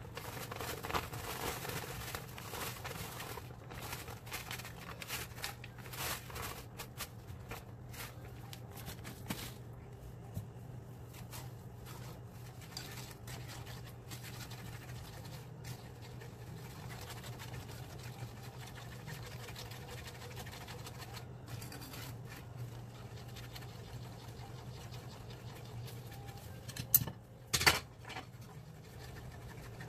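Coated whisk scratching around a nonstick skillet of bubbling caramel sauce, with irregular scraping and sizzling over a steady low hum. Two sharp knocks come near the end.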